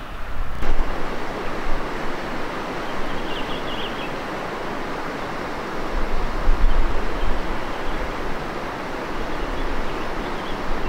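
Steady outdoor rushing noise of wind, with low gusts buffeting the microphone, strongest about six seconds in. Faint high chirps come through briefly about three seconds in.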